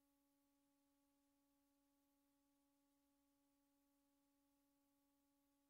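Near silence, with only a very faint, steady hum that does not change.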